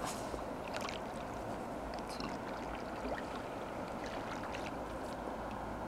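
Steady rush of river rapids, with faint scattered small splashes and ticks of water close by.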